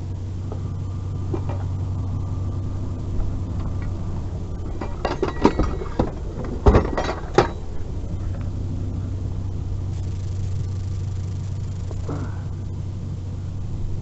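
Vehicle engine idling steadily, with a short run of knocks and rattles about five seconds in, like items being handled and set down.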